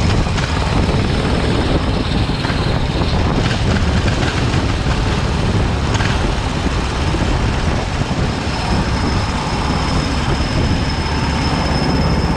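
Kart engine noise: a steady, loud drone with a thin high whine coming in about two-thirds of the way through.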